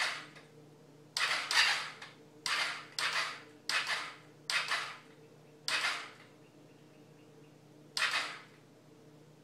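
A 110cc pocket bike's electric starter is pressed again and again in short, irregular goes, giving about nine brief metallic clacks that each die away within half a second. The starter is failing to turn the engine over.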